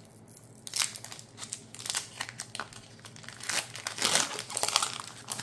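Foil Pokémon booster pack wrapper crinkling as it is opened, in irregular crackly bursts that start about a second in and grow denser near the end.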